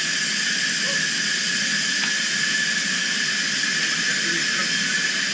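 Compressed air rushing into a hyperbaric chamber as it is pressurised: a steady loud hiss with a high whistling tone held in it.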